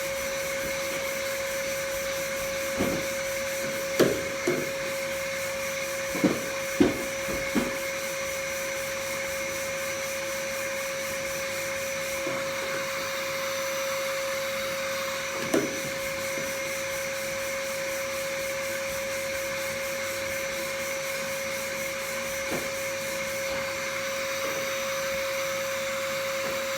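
Electric power sander running steadily on car bodywork, a constant motor hum under the rasp of the abrasive, with a few brief knocks as it bumps the panel.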